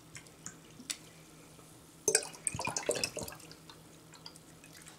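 Carbonated lemon-lime soda (Sierra Mist) poured from a plastic bottle into a glass: a thin trickle with scattered fizzy ticks and drips, and a louder splashing patch about two to three seconds in.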